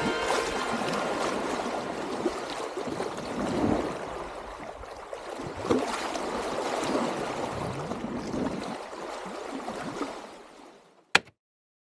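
Water rushing and sloshing, swelling and easing in loudness, then fading out near the end; a single sharp click follows.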